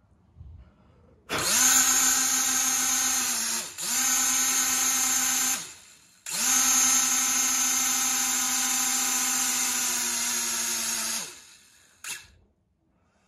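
Toy mini quadcopter's small motors spinning its propellers, only three of the four turning, run straight off a phone charger's leads: a high buzzing whine that spins up about a second in, dips once, cuts out for a moment near the middle, then spins up again and winds down near the end, with a short blip after.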